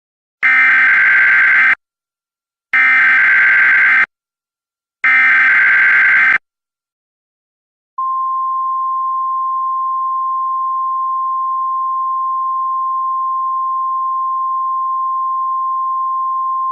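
Emergency Alert System broadcast for a severe thunderstorm warning: three short bursts of SAME digital header data, the coded warning type and counties, each a little over a second long with short pauses between. About eight seconds in, a single steady attention tone starts and holds, the National Weather Service alert tone that announces the spoken warning.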